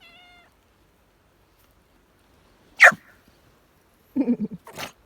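Pet animal calls: a cat gives a short, faint meow right at the start, then about three seconds in comes one sharp, loud cry that falls quickly in pitch, followed by a few short low sounds near the end.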